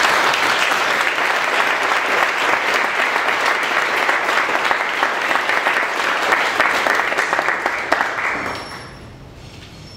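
Audience applauding: many hands clapping at once, steady at first, then dying away about nine seconds in.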